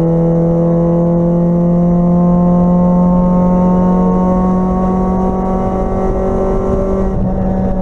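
Integra race car's four-cylinder engine, heard from inside the cabin, pulling hard in one gear, its pitch slowly rising as the car gains speed. About seven seconds in, its upper tones weaken slightly.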